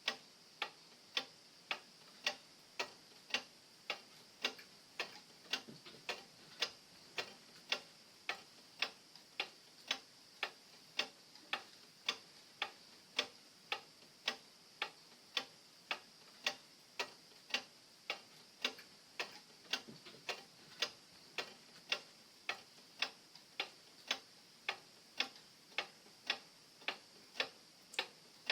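Pendulum wall clock ticking steadily, about two even, sharp ticks a second.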